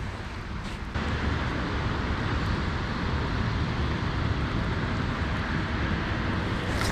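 Steady rushing noise of rain falling outdoors, with no distinct events, getting louder about a second in.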